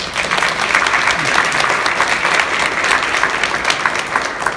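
A group of people clapping together, a dense patter of many hands that starts at once and fades out near the end.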